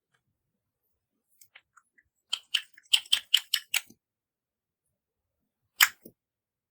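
A quick run of about eight sharp clicks and crackles a little over two seconds in, lasting about a second and a half, then a single louder click near the end.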